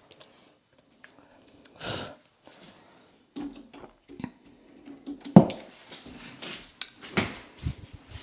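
Scattered clicks and knocks of door hardware being handled and fitted on a door, with a sharp knock about five seconds in and another near the end.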